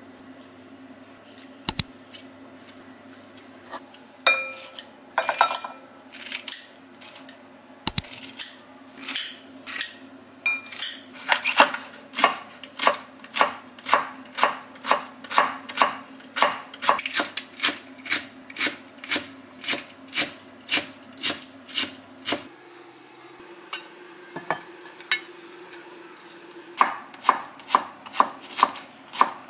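Knife chopping on a cutting board: a few scattered knocks at first, then a steady run of strokes at about two to three a second. The strokes pause for a few seconds near the end, then resume.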